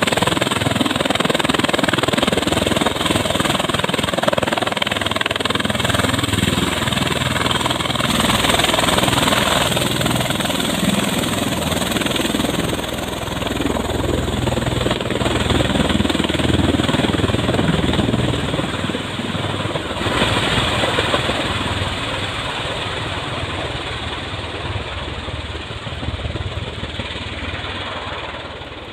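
Bell Boeing MV-22 Osprey tiltrotor running at high power in helicopter mode, its twin turboshaft engines and big proprotors making a heavy, continuous rotor noise as it lifts off. The sound grows fainter near the end as the aircraft climbs away.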